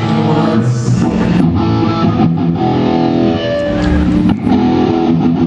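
Live rock band playing amplified electric guitar and bass guitar, holding chords that change every second or so.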